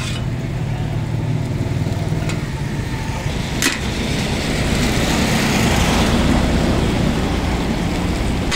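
Steady low rumble of running engines, with one sharp click about three and a half seconds in.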